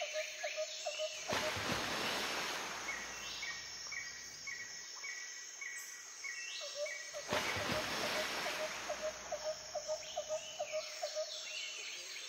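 Outdoor birdsong and calls: a quick run of short, repeated calls at about four a second at the start and again in the second half, with small birds chirping over it and a string of short high peeps in between. Two bursts of rushing noise cut across it.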